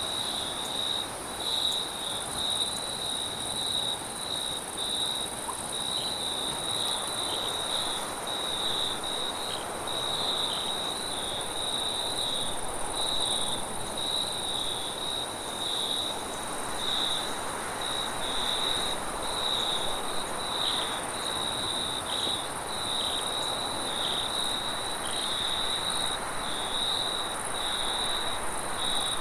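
Crickets chirping in a steady, rapidly pulsed chorus, with a soft rushing wind beneath that swells and eases a little past the middle.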